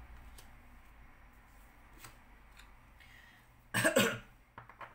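A person coughs once, briefly, about four seconds in, against quiet room tone with a few faint light clicks.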